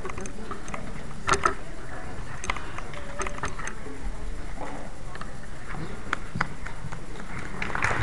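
Lull in a concert hall right after an orchestra's final note: a steady hiss of room noise with scattered small clicks, knocks and rustles from the audience and players, and a faint murmur of voices. Applause swells in at the very end.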